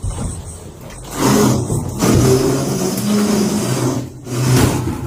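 A car engine revving, loud and held for several seconds, rising about a second in and easing off near the end.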